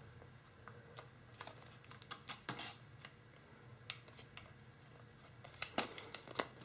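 Faint, irregular crinkles and clicks of tissue foil (tissue paper laminated to kitchen foil) being creased and folded between the fingers, in small clusters about two seconds in and again near the end.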